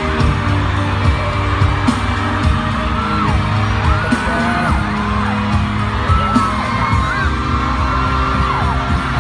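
Pop-style background music with a steady beat, with voices gliding up and down over it.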